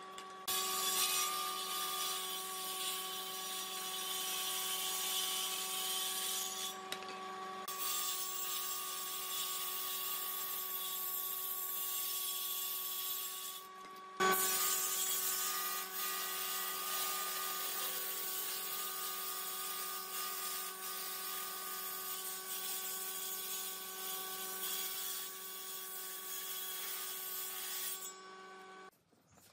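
Table saw of a combination woodworking machine running with a steady motor whine while ripping thin strips of wood, the cutting hiss carrying over it. The cutting drops out briefly about seven and fourteen seconds in between strips, with a sharp click at the second gap. Near the end the cutting stops and only the motor whine is left for a moment before it all cuts off.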